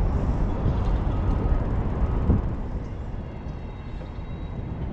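City traffic noise with a low, steady rumble of wind on the microphone, heard from a moving bicycle; a short knock about two seconds in, after which it gets a little quieter.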